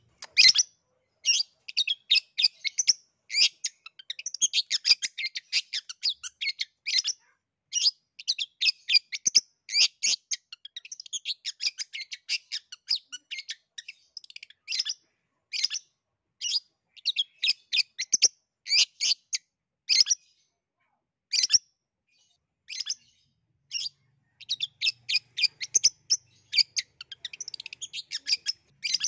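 Long-tailed shrike (cendet) singing in full, lively song: fast chattering runs of short high notes broken by brief pauses.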